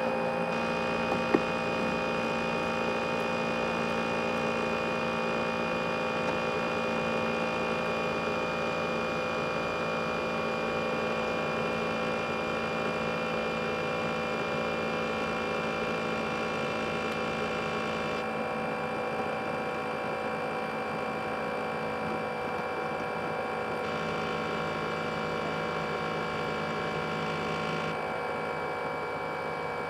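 ASUS X543UA laptop's cooling fan running hard, a steady rushing noise with a whine of several steady tones, jet-engine-like; a single click about a second in.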